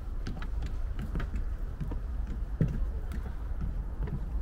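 Footsteps on a path at an easy walking pace, about two steps a second, over a steady low rumble.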